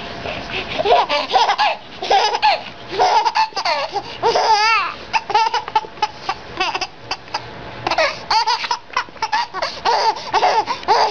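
A baby laughing hard in repeated fits of belly laughter, with a quieter spell about halfway through.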